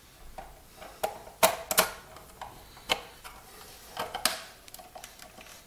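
Irregular sharp clicks and taps of a screwdriver and screws against the plastic case of a Timex Sinclair 1000 computer as it is screwed back together. About half a dozen clicks, the loudest pair about a second and a half in.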